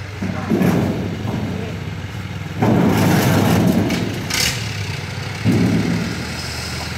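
Truck engine idling, with three louder surges of engine noise: a short one near the start, a longer one in the middle and another near the end. A brief hiss comes during the middle surge.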